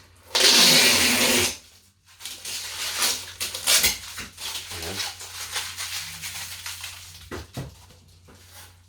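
Packing material on a new dishwasher being handled: a loud rustle lasting about a second just after the start, then scattered rustling and small knocks.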